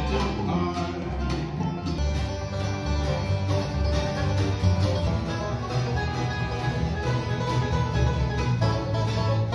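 A live acoustic bluegrass band playing: banjo and guitar picking over a cello, with an upright bass keeping a steady beat.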